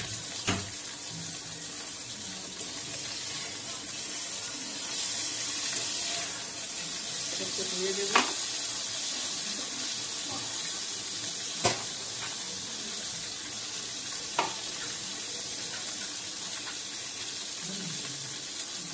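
A pan of dal boiling hard: a steady bubbling, sizzling hiss, with a few short sharp knocks scattered through it.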